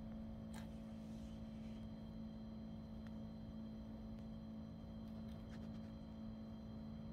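Faint steady low hum, with a few soft clicks scattered through it.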